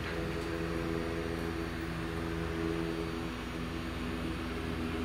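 A steady electrical hum made of several held tones over a low rumble and a light hiss.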